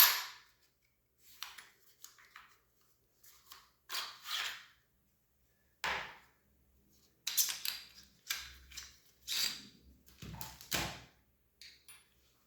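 Small metal parts of a Milsig T17 paintball marker being handled while its bolt is taken out: a sharp click at the start, then scattered clicks and scrapes.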